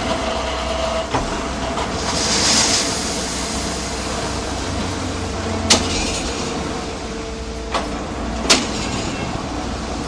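Concrete mixer pump running with a steady mechanical hum and low drone. A hissing swell comes about two seconds in, and sharp clanks come near the middle and twice more towards the end.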